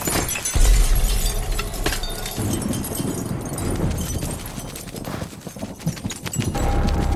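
Film sound effects of a heavy crash: a deep boom about half a second in, followed by glass shards and rubble clattering and tinkling down. A low steady drone comes in near the end.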